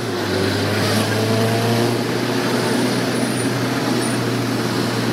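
Jeepney's diesel engine running while driving, heard from the front of the cab over steady road and wind noise; the engine note climbs slowly in the first couple of seconds.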